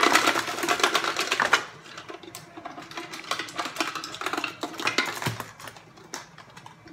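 Rapid mechanical clicking and rattling from a handheld chicken-shaped kitchen gadget being worked. It is dense for about the first second and a half, then thins to scattered clicks.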